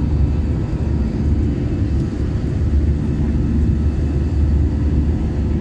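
Airplane flying overhead: a steady low engine drone.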